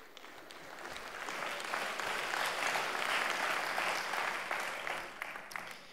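Congregation applauding, swelling over the first two seconds or so and dying away near the end.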